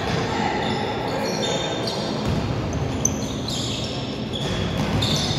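Basketball being played in a gym: many short high sneaker squeaks on the court floor and the ball bouncing, with one sharper knock about three seconds in.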